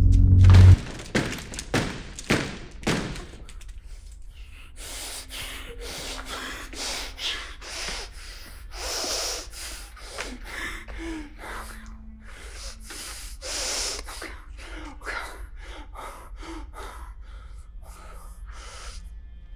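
A loud low drone cuts off suddenly just under a second in, leaving a person's heavy breathing and gasps, one every second or so, over a faint low hum.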